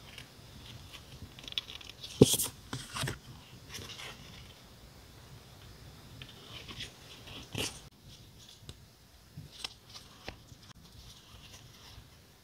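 Crinkling and rustling of paper and plastic packaging and sticker sheets being handled, with scattered light taps and clicks. The loudest crinkles come a little over two seconds in and again at about seven and a half seconds, with only a few faint ticks after that.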